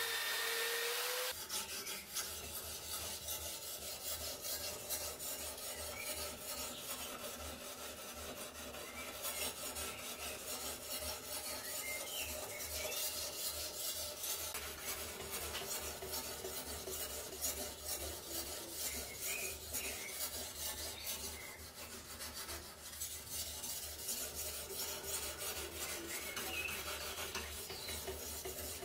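A sharpening stone on the guide rod of a clamp-type guided knife sharpener rubs along the steel blade edge in quick repeated rasping strokes. In the first second, a spinning abrasive wheel polishes the blade, then it cuts off.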